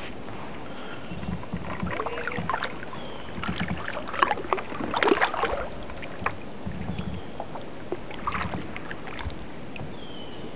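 Kayak paddle blades dipping and splashing in the water in irregular strokes, with dripping between them, busiest around the middle.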